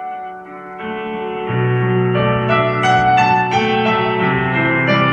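Instrumental music led by piano or electric keyboard, with a bass line coming in about a second and a half in: the introduction to a song.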